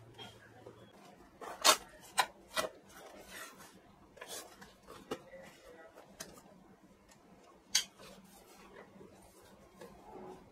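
Hands rubbing and rustling over a padded nylon speaker carry bag, with several sharp snaps from its straps and plastic buckle: three close together about two seconds in, the first the loudest, and another near the end.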